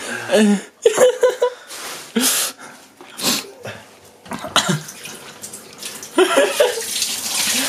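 A man reacting to the burn of a very hot chili: sharp hissing breaths and short pained groans without words. Near the end a kitchen tap runs steadily as he drinks from it to cool his mouth.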